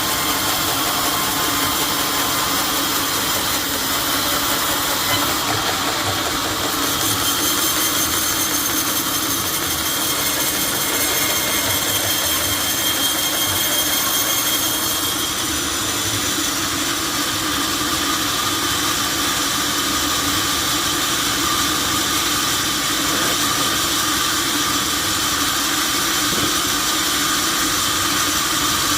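Sawmill saw running steadily through an oak log: a loud, even hiss of machinery with a faint high whine that changes pitch a couple of times.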